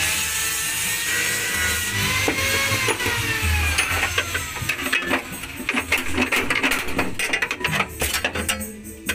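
A machine whine that falls in pitch over the first few seconds, then irregular sharp metallic taps and scrapes on steel bodywork.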